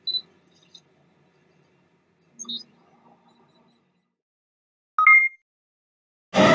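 Intro title-card sound effects: faint tinkling, sparkly chimes and light ticks, then a short, bright two-tone electronic blip about five seconds in. Music starts right at the end.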